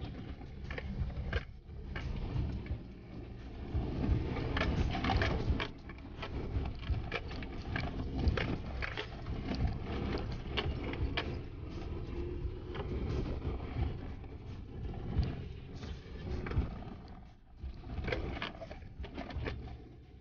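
Suzuki Jimny driving over a rough dirt forest track, heard from inside the cabin: a steady low engine and tyre rumble with frequent knocks and rattles as the body jolts over the bumps.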